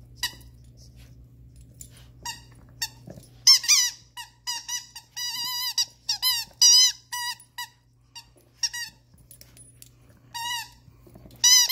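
Squeaker in a toy ice cream cone being bitten by a rat terrier: a quick run of short, high squeaks, then a few more near the end.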